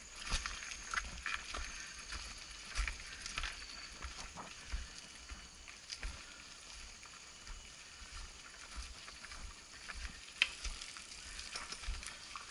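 Mountain bike rolling slowly over a rocky, leaf-covered dirt trail: irregular clicks, knocks and rattles from the bike, over a low uneven rumble.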